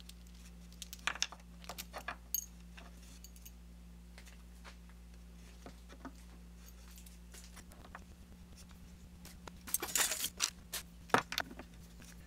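Small metal hand tools and a turned aluminium part clinking and clattering as they are handled and set down on a wooden workbench: scattered light clicks about a second in, and a denser clatter about ten seconds in, over a steady low hum.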